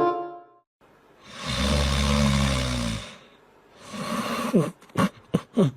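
A dog growls loudly for about two seconds, a rasping noise over a low rumble, then gives a shorter, weaker growl. A run of quick, high squeaky sounds follows near the end.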